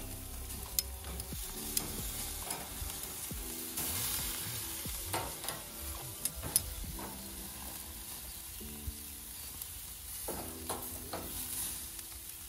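Meat sizzling on a barbecue grill's wire grate, a steady hiss, with occasional sharp clicks and scrapes of a metal spatula and tongs against the grate as the pieces are turned.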